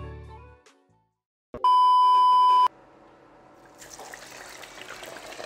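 Closing music fades out, and after a brief silence a loud, steady electronic beep at a single pitch sounds for about a second. Faint kitchen noise of cooking at a stove comes in near the end.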